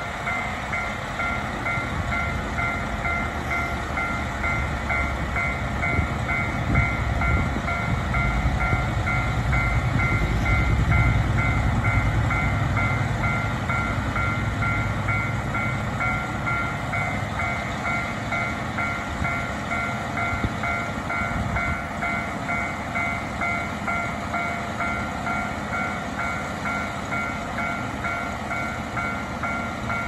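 KiHa 283 series diesel express railcars idling at a station, their engine rumble swelling about eight seconds in and easing off a few seconds later. Over it a two-tone bell or chime rings over and over at a steady, quick beat.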